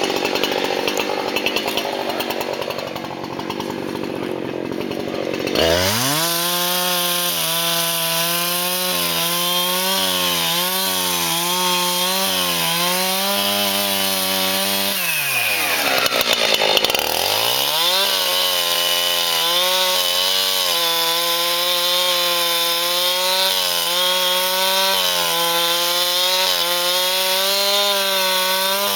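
Two-stroke chainsaw cutting a downed tree. About six seconds in the engine revs up to full speed and holds a steady high pitch; around the middle it drops sharply in pitch and climbs back.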